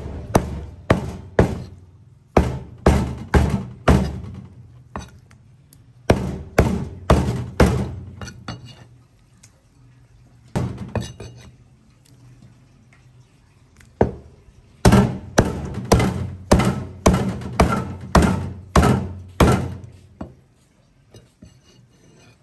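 Heavy cleaver chopping moray eel through the bone into steaks on a plastic cutting board: runs of sharp thunks about two a second, broken by short pauses.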